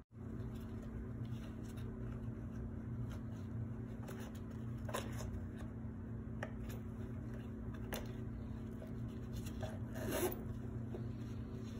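Rustling and light knocks of gloved hands handling a leather handbag and the cardboard tubes stuffed inside it, with a metal zipper drawn along its track about ten seconds in. A steady low hum runs underneath.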